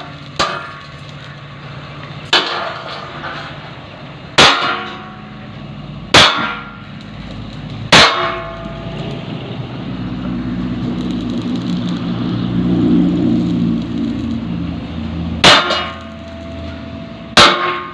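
A hammer striking steel: seven sharp clangs, each ringing briefly, about two seconds apart, with a long pause in the middle. During the pause a low rumble swells and fades.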